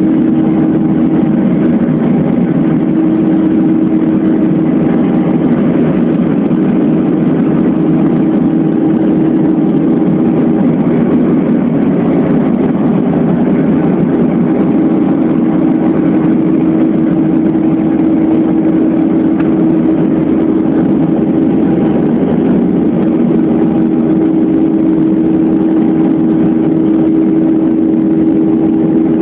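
Jet airliner cabin noise during the climb after takeoff: the underwing turbofan engines and rushing air make a loud, steady drone with a constant hum.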